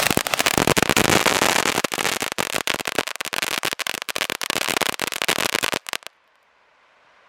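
Silver Dragon ground firework from a Zap selection box crackling: a dense run of rapid pops and crackles that stops abruptly about six seconds in.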